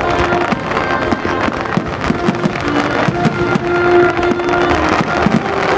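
Fireworks going off in a rapid, dense string of bangs and crackles, over music with held notes playing at the same time.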